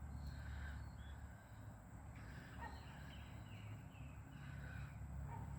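Birds calling, with a run of short falling notes about two a second in the middle, over a steady low rumble.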